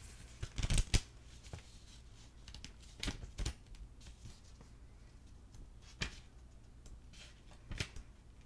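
Tarot cards being handled: a few separate sharp taps and flicks of the cards, the loudest cluster about a second in.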